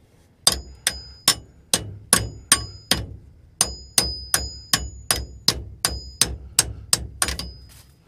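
A tool repeatedly taps a seized brass gate valve's handwheel, metal on metal, a little over two sharp ringing clanks a second with a short pause about three seconds in. The tapping frees the stuck valve so that it can be turned to shut off the water.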